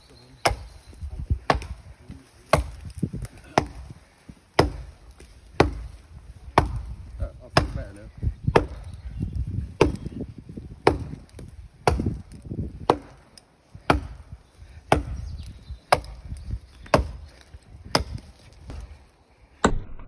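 Ground and polished flint axe head on an ash haft chopping into a standing tree trunk, with sharp strikes about once a second.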